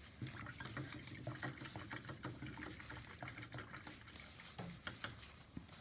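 Faint handling noises: scattered light clicks and rustling, with a low hum through the first half or so.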